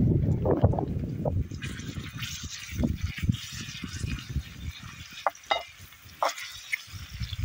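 Sliced mushrooms and onions sizzling in oil in a pot as they are stirred with a utensil. The steady sizzle comes in about a second and a half in, with soft wet stirring knocks and a few sharp clicks of the utensil against the pot near the end.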